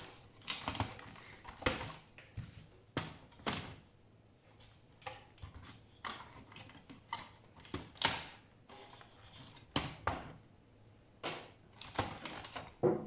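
Irregular sharp clicks, snips and knocks of hand cutters and pliers working inside a DVD player's metal chassis as wire is cut and pulled out for scrap, with small parts rattling against the sheet metal.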